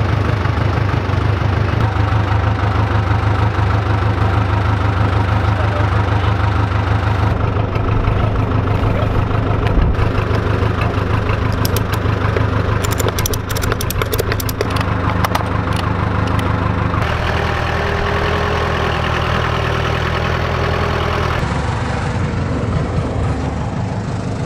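Diesel engine of a Case backhoe loader running steadily, a loud low drone whose tone shifts a few times, with a run of clicks and rattles around the middle.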